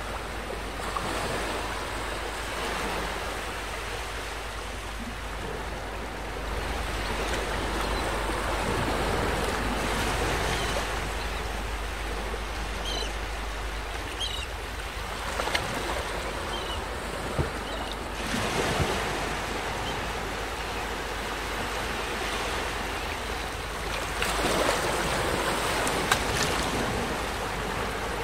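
Small waves breaking and washing up onto a sandy beach, the surf swelling louder and easing off in several surges.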